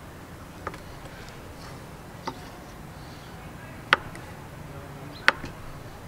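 Kitchen knife cutting through a block of cheese and striking a wooden cutting board: four sharp knocks about a second and a half apart, the last two loudest.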